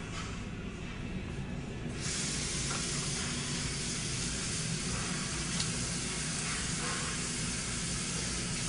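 A steady hiss starts abruptly about two seconds in, over a low steady hum.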